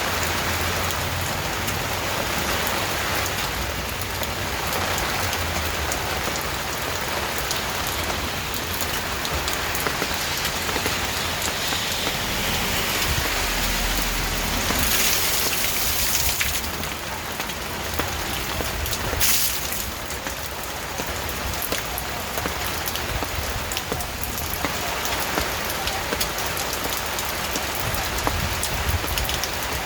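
Steady rain falling and pattering on surfaces. It briefly swells about halfway through, with one sharper splash shortly after.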